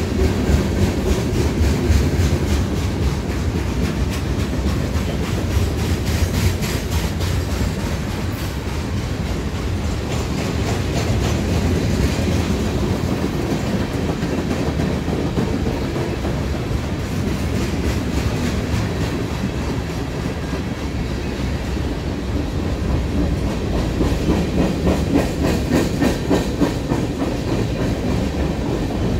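Freight cars of a slow-moving CSX manifest train rolling past, a steady low rumble with their wheels clicking over the rail joints. The clicking is denser and louder for a few seconds early on and again near the end.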